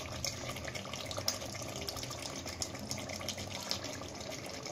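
Chicken curry sizzling in its separated oil in the pot on the stove, with scattered small pops and ticks.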